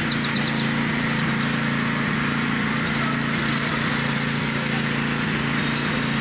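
Engine running steadily at an even speed, the machinery working a concrete slab pour, with a few short faint high chirps near the start.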